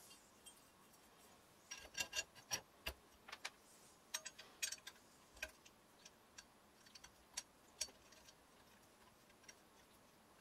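Short metallic clicks and clinks of steel parts knocking together as a tool-rest arm is set onto its post on a cast-iron pottery wheel and its wing bolt is turned. The clicks come thickest in the first half and thin out after about eight seconds.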